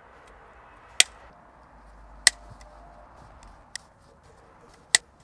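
Rotary leather hole punch pliers clicking shut through thin leather, each click a hole punched. Three sharp clicks, the last after a longer gap, with a fainter tick between the second and third.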